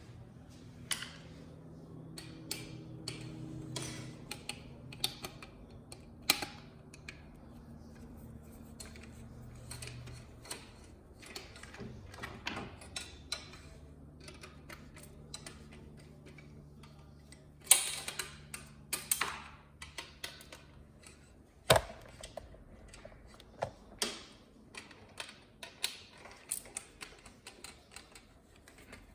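Irregular clicks, ticks and taps of tools and plastic and metal parts being handled while a flat-screen TV is taken apart, with a few louder clacks past the middle, over a faint low hum.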